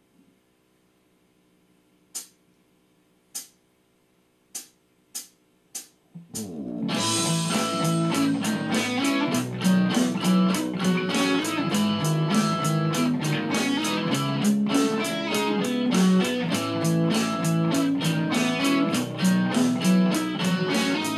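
Count-in of six clicks, two slow then four quicker, then about six seconds in a backing track of drums and bass starts. A Stratocaster-style electric guitar plays a slow ballad along with it.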